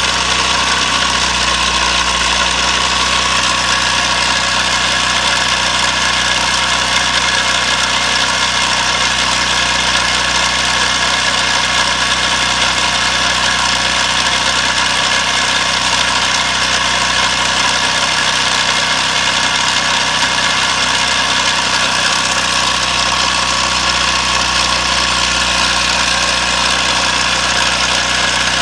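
Small single-cylinder engine fitted with a GEET fuel processor and fed on propane, running steadily at about 3,700 rpm.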